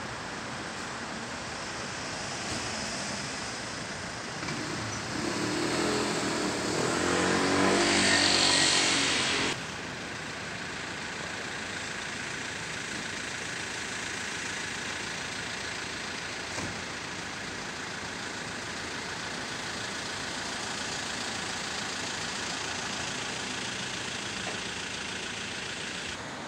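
Steady city street traffic noise, with one vehicle passing that grows louder over a few seconds and cuts off abruptly about a third of the way in.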